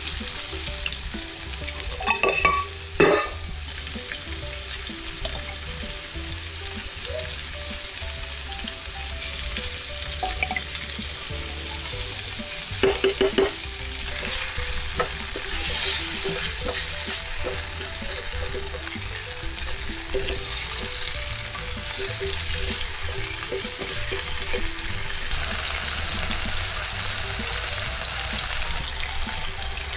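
Food sizzling as it fries in a pan, with short clatters of a utensil against the pan about two to three seconds in and again around thirteen seconds.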